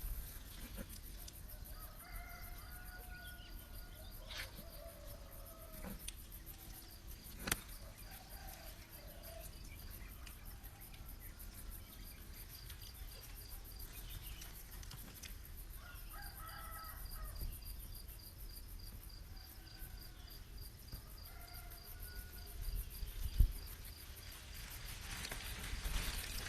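A rooster crowing faintly, twice: about two seconds in and again a little past the middle. Insects keep up a faint, evenly pulsing chirp beneath it.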